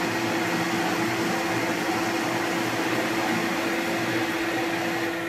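Victor metal lathe running steadily while a 20 mm cutter counterbores a spinning metal workpiece, chips curling off: a steady machine hum with one constant tone.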